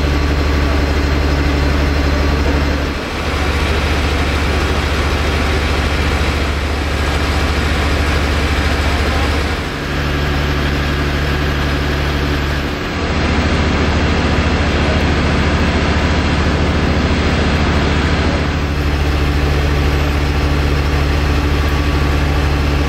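An engine running steadily at idle with a deep, even hum, dipping briefly three times.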